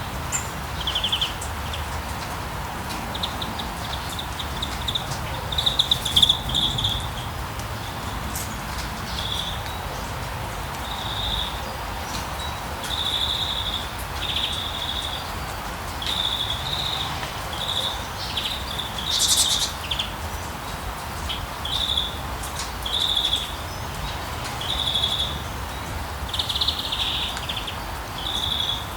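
Steady rain with a low rumble beneath it, while small birds sing short, repeated chirping phrases every second or so.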